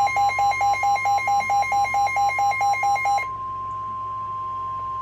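NOAA Weather Radio warning alarm tone: a steady, loud single tone. For the first three seconds a second, lower beep pulses on and off about four times a second over it, then stops, leaving the steady tone alone.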